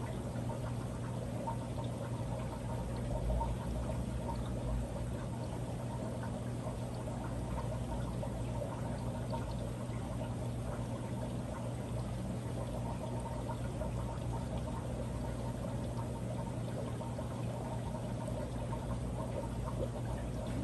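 Aquarium filter running: steady pouring, trickling water with a low, even pump hum underneath.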